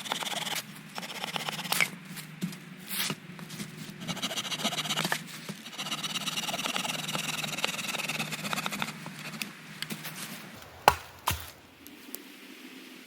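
A handsaw rasping through a branch in stretches of quick strokes, cutting firewood, followed by two sharp knocks about eleven seconds in.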